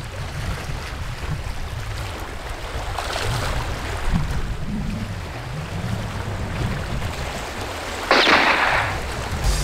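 Wind rumbling on the microphone over the wash of choppy sea against shore rocks, with a short loud rush of noise about eight seconds in.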